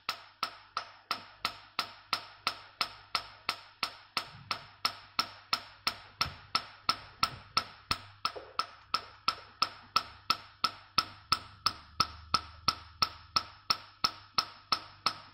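Nd:YAG laser handpiece firing pulses onto the skin, a sharp click with each pulse, evenly about three a second at a 3 Hz repetition rate, as it treats a dark pigmented patch on the cheek.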